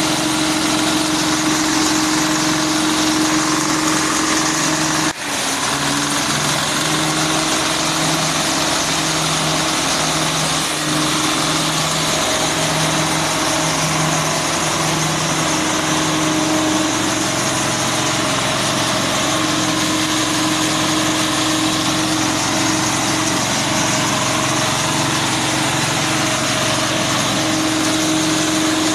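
Small single-cylinder diesel engine of about 7 horsepower running steadily, belt-driving the spinning cutter of a grass chopper with nothing yet fed into it. The sound drops out for an instant about five seconds in.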